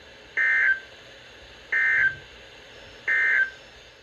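Emergency Alert System end-of-message data bursts: three short bursts of two-tone digital screech, each about a third of a second long and about a second and a half apart, over steady radio hiss. They mark the end of the warning message.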